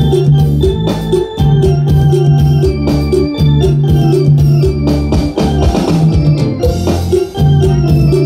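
Electronic keyboard playing an instrumental dance passage with an organ sound over a repeating bass line and a steady drum and percussion beat.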